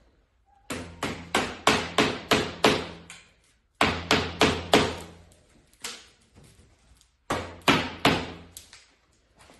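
Mallet striking a PVC pipe to seat it into a fitting. There are three runs of quick blows, about three a second: a long run of about eight, then five, then four, with short pauses between them.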